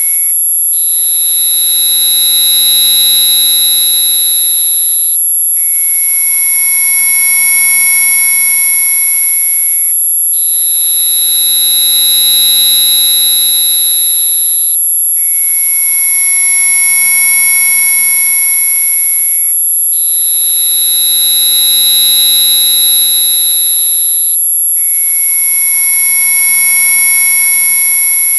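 Electronically generated insect-repellent audio: a loud, harsh chord of many steady tones topped by a piercing very high whine. The mix switches about every five seconds after a short dropout, trading between a lower and a higher prominent tone.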